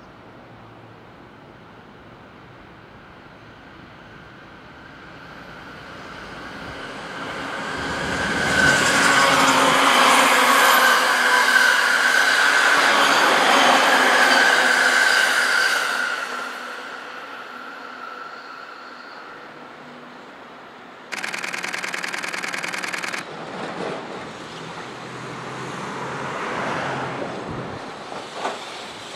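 A commuter electric train passes close by: wheel and motor noise builds to a loud peak with a steady whine, then fades. About two-thirds of the way in a train horn sounds for about two seconds, then an EF65 electric locomotive and its empty long-rail flat wagons roll past with a few wheel clicks.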